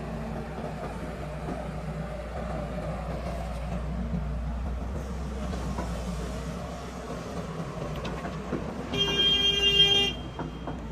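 Heavy diesel engine running steadily, and about nine seconds in a vehicle horn sounds once for about a second.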